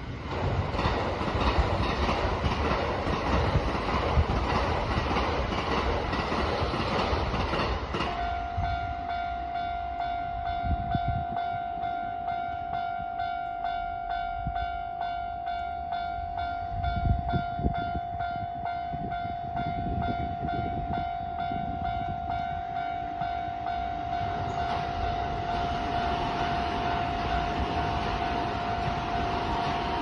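A train running past for the first eight seconds. About eight seconds in, a Japanese railway level-crossing bell starts its repeating electronic ringing and keeps ringing steadily as the barriers come down, the warning that a train is approaching.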